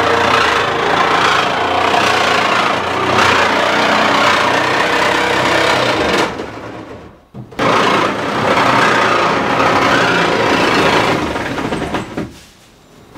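Corded jigsaw cutting through the sheet-metal roof of a van. It runs for about six seconds, stops briefly, then cuts again for about four seconds before stopping near the end.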